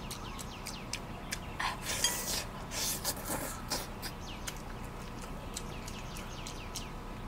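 Close-up wet chewing and lip smacking of someone eating braised beef head meat, with many small quick mouth clicks and a couple of short hissing breaths about two and three seconds in.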